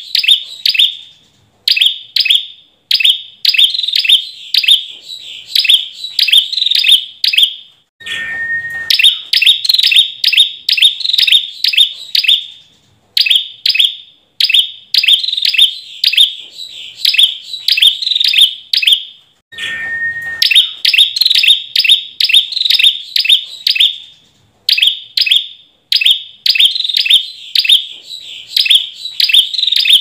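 Ashy tailorbird (Orthotomus ruficeps) singing: loud runs of high, sharp repeated notes, about three a second, in phrases of several seconds with short pauses between. Twice a lower, steady whistled note opens a run.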